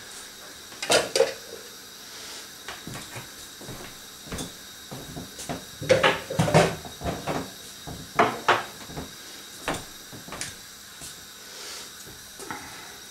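Kitchen utensils being handled and set down: scattered knocks and clatters from a wooden board, a metal knife and a plastic bowl with a ladle, loudest about a second in and again between about six and nine seconds in.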